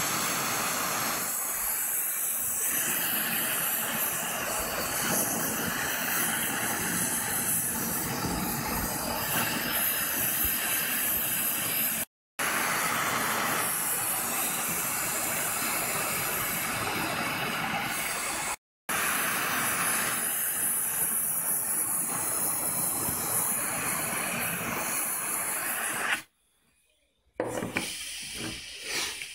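Gas torch flame hissing steadily as it heats a titanium knife handle scale to colour it by heat oxidation. The hiss cuts out about 26 s in.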